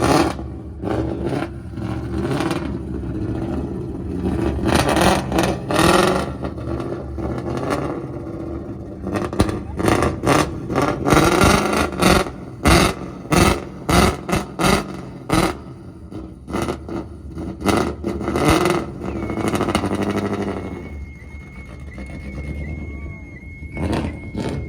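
Ford Mustang RTR's engine revved hard through its loud exhaust, with a long run of quick sharp rev blips in the middle before it settles. Near the end a steady high alarm tone with small regular chirps starts up: the Koenigsegg CCX's car alarm, set off by the exhaust noise.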